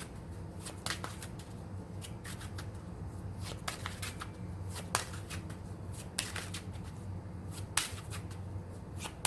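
A deck of tarot cards being shuffled by hand: irregular crisp card flicks and clicks, over a steady low hum.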